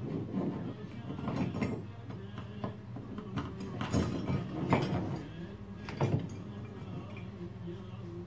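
Metal gear wheels and parts of an old wall clock movement clinking and knocking as they are handled and fitted together by hand. There are a series of separate clicks, the sharpest about 4 and 6 seconds in.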